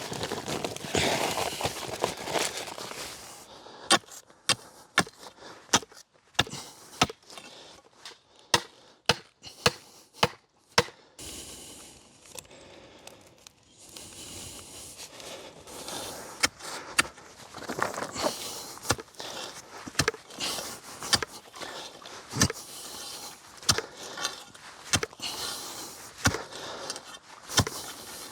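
Pegs being knocked into the ground: a run of sharp knocks at about two a second, followed by more scattered knocks over rustling.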